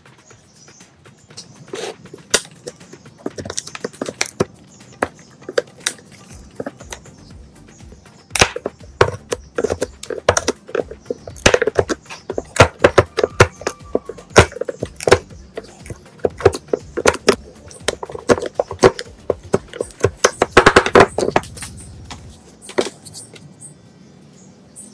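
Irregular sharp knocks and taps on wood, sparse at first, then coming thick and fast from about a third of the way in until shortly before the end.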